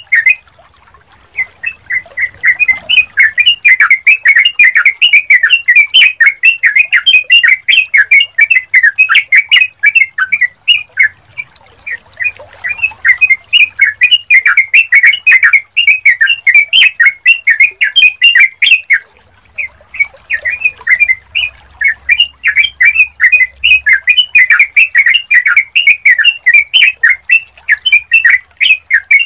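Yellow-vented bulbul (trucukan) singing: fast, bubbly chirping phrases run on almost without break, pausing briefly about a second in, about eleven seconds in and about nineteen seconds in.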